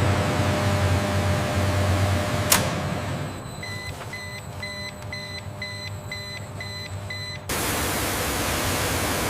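A truck engine rumbling, a sharp click, then a run of about eight evenly spaced beeps, about two a second, like a reversing alarm. The sound then cuts suddenly to a steady hiss.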